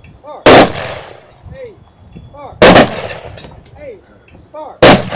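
Three rifle volleys about two seconds apart, each a single sharp crack with a short echo: the three-volley salute of military funeral honors.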